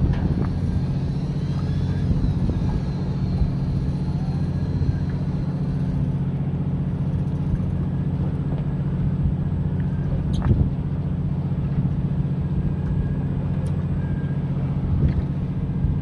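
Steady low drone of a fishing boat's machinery running, with one sharp knock about ten seconds in.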